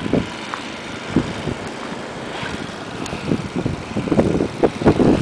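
Wind buffeting the microphone in a blizzard: a steady rushing hiss with irregular low gusts that grow stronger near the end.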